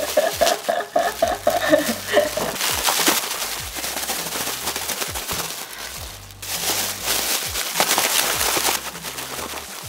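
Thin plastic bag shaken hard and fast, its film crinkling and crackling continuously as the instant coffee, sugar and water inside are whipped into foam. The crackling eases briefly about six seconds in, then picks up again.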